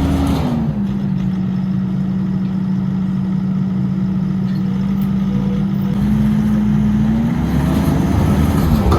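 Skid steer engine running steadily, its pitch dipping slightly near the start, then climbing over the last few seconds and dropping sharply at the end as the throttle or load changes.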